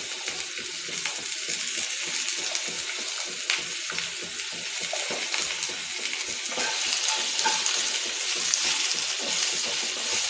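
Potato wedges, carrot, capsicum and onion sizzling in oil in a non-stick frying pan, with a steady hiss. About halfway through, a wooden spatula starts stirring them, adding light clicks and scrapes.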